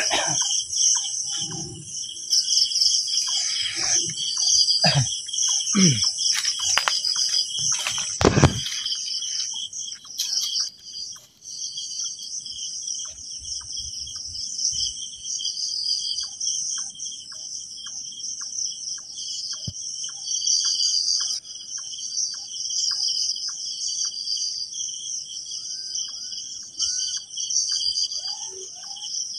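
A night insect chorus, a dense high chirring that pulses steadily throughout. Knocks and clatter come in the first eight seconds, and a faint regular ticking of about two a second runs through the middle.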